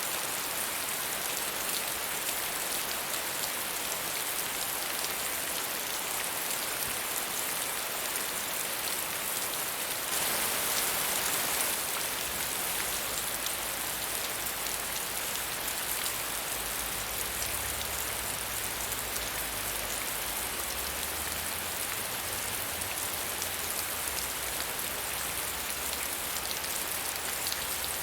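Steady medium rainfall: an even hiss of rain on surfaces, swelling slightly for a couple of seconds about a third of the way through.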